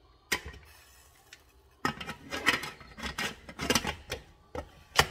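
Stainless steel pressure cooker lid being fitted and twisted shut by its handle: metal scraping and clattering against the pot rim, with a click shortly after the start and a sharp click near the end.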